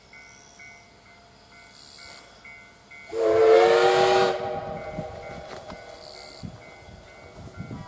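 Steam whistle of the Class C11 tank locomotive No. 171, one blast of a bit over a second: several notes sounding together with a hiss, the pitch settling slightly upward at the onset, then fading. The locomotive's exhaust chuffs faintly as it works.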